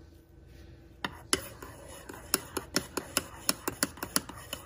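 Metal spoon clinking against the inside of a ceramic mug while stirring whipped coffee into hot milk: a quick run of sharp clinks, about three a second, starting about a second in.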